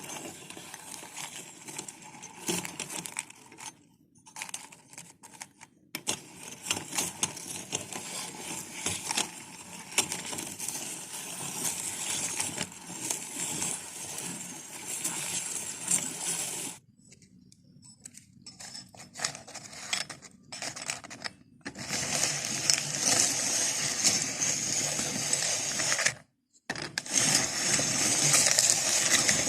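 Meat grinder crunching glucose biscuits: a dense crackling with many sharp clicks and clinks, stopping and starting a few times.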